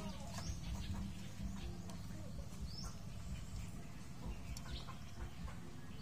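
Birds chirping: a few short, rising high chirps spaced a couple of seconds apart, over a steady low background rumble.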